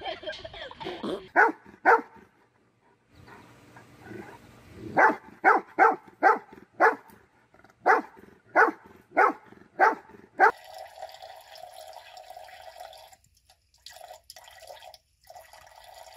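Two short, sharp sounds, then a dog barking about nine times in quick succession. After that, a thin stream of tap water runs into a bathroom sink, breaking up into short spurts near the end.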